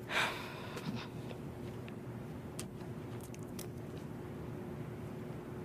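Quiet room tone with a faint steady hum, a brief breathy noise just after the start and a few faint clicks.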